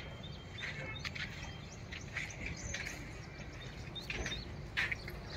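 Birds chirping in short, scattered calls, over a steady low background rumble.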